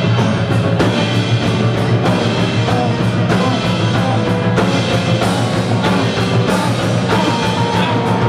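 Live band playing a driving rock-jazz groove on grand piano, drum kit and upright bass, with a steady run of drum hits.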